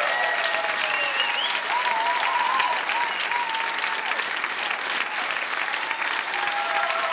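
Audience applauding steadily, dense clapping throughout, with a few voices calling out over it in the first few seconds.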